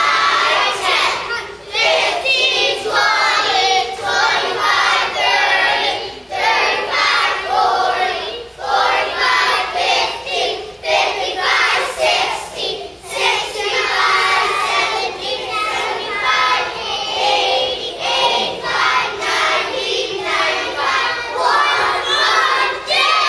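A class of young children singing together in unison, in short rhythmic phrases, without instruments.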